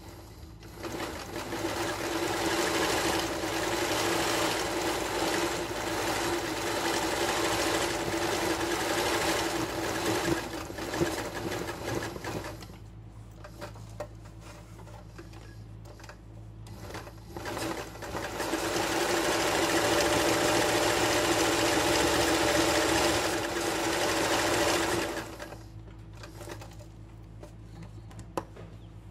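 Sewing machine running for free-hand machine embroidery, stitching steadily in two long runs: one of about twelve seconds, then after a pause of several seconds, one of about seven seconds. Between the runs and near the end, light clicks as the fabric is shifted.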